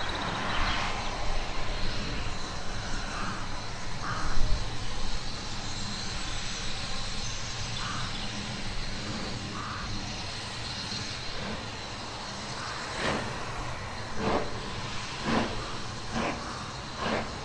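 BR Standard Class 9F steam locomotive hissing steam as it works slowly forward. Sharp exhaust chuffs begin about two-thirds of the way in, coming roughly one to two a second.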